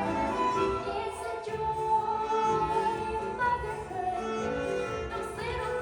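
A girl singing a musical-theatre song in sustained, held notes over instrumental accompaniment.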